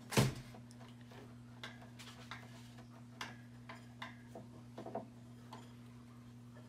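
Screws being worked out of the back panel of a Maxspect Razor LED light fixture with a screwdriver: one sharp click just after the start, then scattered light ticks, over a steady low hum.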